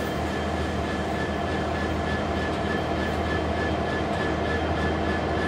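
Diesel railway engines running steadily: a constant low rumble with a thin steady whine over it.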